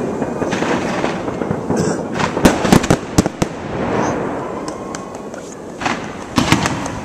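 Fireworks going off overhead: a dense run of sharp bangs and crackles over a continuous rumble, with the reports coming thickest about two and a half seconds in and again near six seconds.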